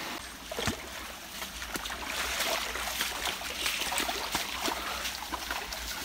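Footsteps wading through a shallow, stony stream: irregular splashes and sloshes of feet in ankle-deep water, over a light hiss of running water.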